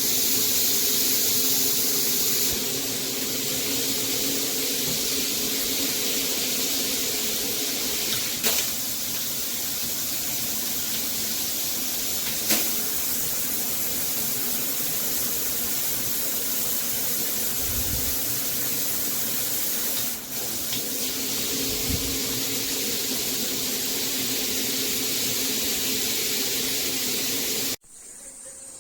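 NOSAME handheld high-pressure shower head spraying water: a steady, even hiss of spray. It cuts off abruptly near the end.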